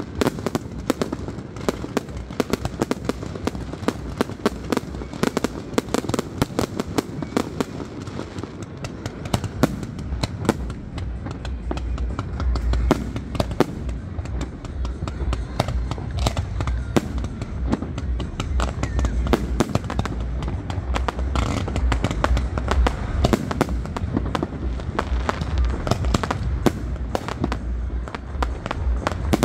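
Aerial fireworks display: a rapid, continuous stream of bangs and crackles from shells bursting overhead, many reports a second. A deeper low rumble builds under it about nine seconds in.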